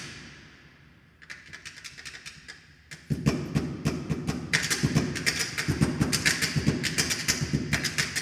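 Percussion, a run of sharp taps: a few scattered strikes at first, then from about three seconds in a fast, steady stream of taps.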